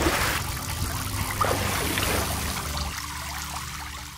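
Water sound effect of splashing and trickling, as a line hauls something up out of the water, over a low steady drone. It fades out at the very end.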